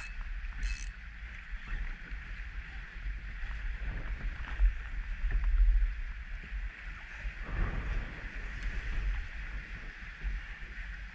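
Wind buffeting the microphone over small waves lapping against a kayak's hull, with a few short ticks near the start.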